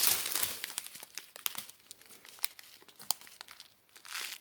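Small plastic bags of diamond painting drills crinkling as they are handled and turned over: a burst of crinkling at first that dies away, then scattered sharp ticks and a short rustle near the end.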